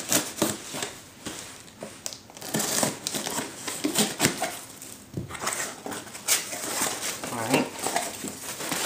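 A cardboard shipping box being opened and unpacked by hand: irregular rustling, scraping and crinkling of cardboard flaps and packing paper.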